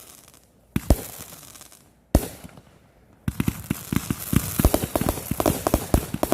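Fireworks going off: two sharp bangs about a second and a half apart, each trailing off, then from about three seconds in a rapid, continuous string of crackling pops.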